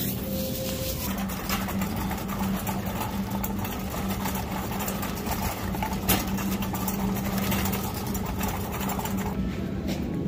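Shopping cart rolling across a smooth store floor: a steady rattling hum from its wheels and wire basket, with one sharp click about six seconds in.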